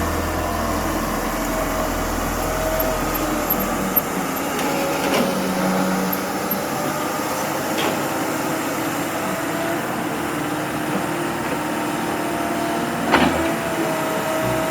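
Heavy construction machinery running steadily, with a few sharp knocks; the loudest knock comes near the end.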